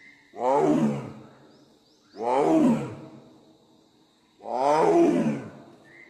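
Bengal tiger roaring three times, about two seconds apart, each roar about a second long and falling in pitch.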